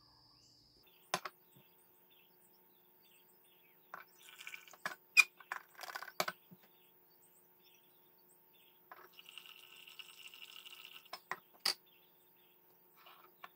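Light clinks and taps of a pour-over coffee dripper being handled and set onto a stainless steel mug: one click about a second in, a cluster of clinks and rustling a few seconds later, and another click near the end. A soft hiss runs for about two seconds in the second half.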